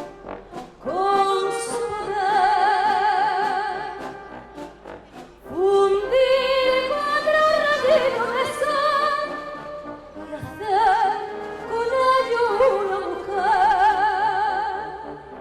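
Operatic-style singing with a wide vibrato on long held notes, over symphony orchestra accompaniment, in several phrases with short breaks between.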